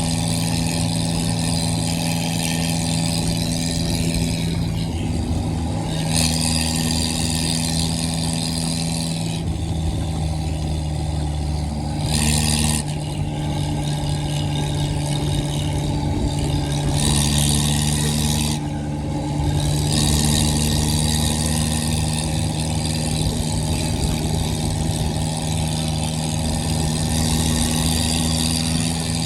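Modified tractor's diesel engine running with its silencer removed, a loud open-exhaust note that holds a steady pitch while its harsher upper sound swells and drops back several times.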